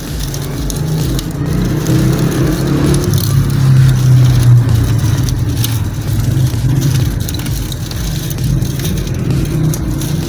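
A motor vehicle's engine running close by, a low steady drone that grows louder over the first few seconds and then slowly fades.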